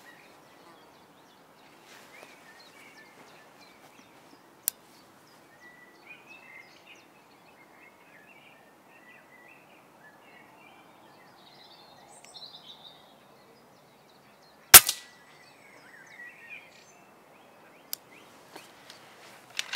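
A single shot from an FX Impact MkII PCP air rifle fitted with a sound moderator: one sharp report about three-quarters of the way through, the loudest thing here. Birds chirp in the background, with a couple of faint clicks before and after the shot.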